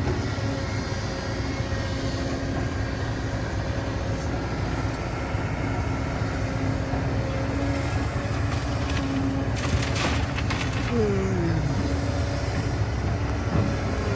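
Diesel engine of a heavy construction machine running steadily, a low rumble with a constant whine. About ten seconds in there is a brief metallic rattle, and just after it a whine falls in pitch.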